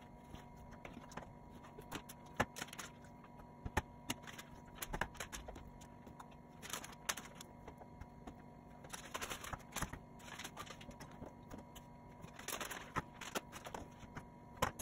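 Irregular knife taps and scrapes on a plastic cutting board and light clinks of a steel bowl as raw chicken breasts are trimmed and portioned by hand, with a few short stretches of rustling. A faint steady hum runs underneath.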